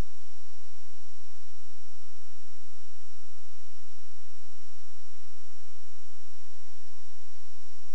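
Steady electrical hum and hiss on the video recorder's audio channel, with faint thin whines over it. One whine steps up slightly in pitch about one and a half seconds in and drops back near the end.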